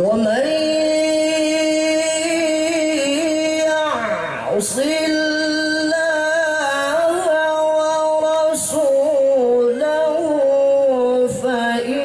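A male qari reciting the Quran in the melodic tilawah style, holding long ornamented notes. One note is held for about four seconds before a short break, and the recitation then carries on in a winding, embellished line.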